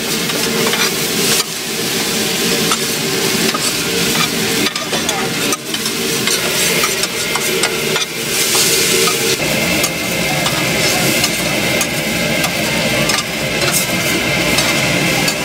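Fried rice sizzling on a flat steel griddle while a wide metal spatula scrapes and turns it, the blade clicking and grating on the steel over and over.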